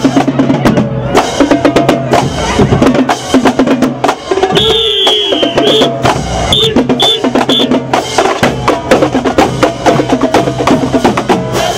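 Marching band drumline playing a fast cadence: rapid snare drum strokes over bass drums, with a steady low tone underneath. A few short, high shrill pips sound about five to eight seconds in.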